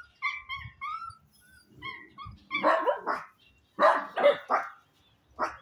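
Small dogs whining in short, high-pitched cries, then breaking into a run of loud, sharp barks from about halfway through, with one last bark near the end.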